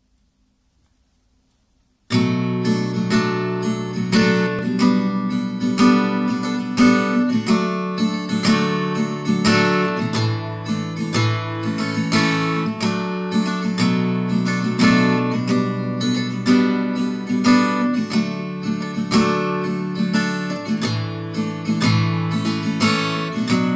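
Solo steel-string acoustic guitar playing a chordal introduction, strummed and picked. It starts suddenly about two seconds in, after silence.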